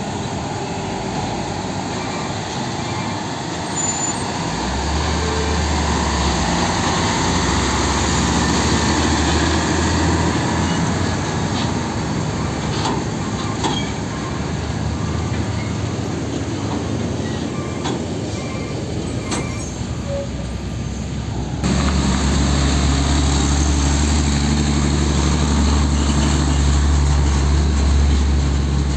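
Diesel tractor-trailer trucks hauling shipping containers driving slowly past round a bend, engines running at low revs. About two-thirds through the sound switches abruptly to a second truck with a louder, deeper engine sound.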